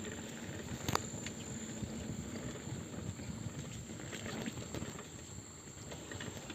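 Mountain bike rolling over a rough dirt trail: a steady tyre rumble with the bike rattling, and scattered clicks and knocks, the sharpest about a second in.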